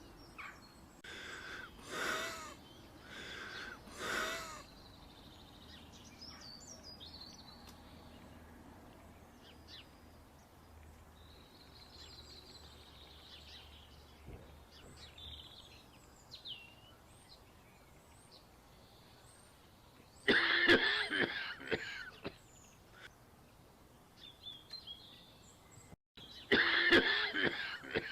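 A person coughing: two short coughs early on, then louder coughing fits about 20 seconds in and again near the end. Small birds chirp faintly in between.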